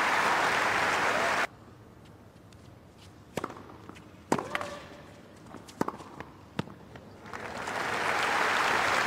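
Crowd applauding, cut off suddenly about a second and a half in; then a tennis rally, a handful of sharp racket strikes on the ball under a second apart; then applause swelling again and holding near the end.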